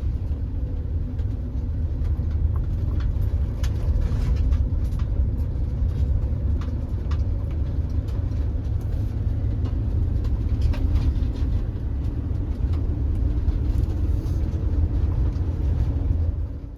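Steady low road and engine noise from a moving vehicle, with scattered light clicks and knocks; it cuts off abruptly near the end.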